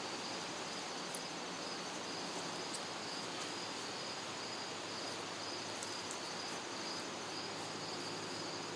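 Insects chirping steadily outdoors, one high, even, pulsing trill, over a faint even hiss.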